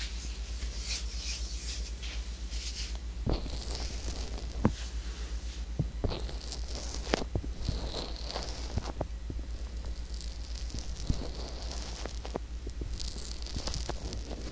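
Fingertips rubbing and pressing the silicone ear of a binaural microphone: close, scratchy rubbing noise with a few sharp taps scattered through it, over a steady low hum.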